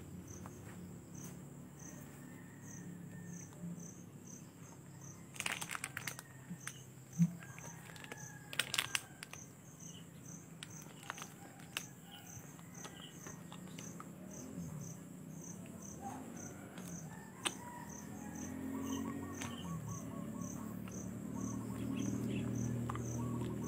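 Crickets chirping faintly and steadily, a short high chirp about twice a second. Over them come a few sharp clicks and soft rustling from handling the soap bars, the rustling growing near the end.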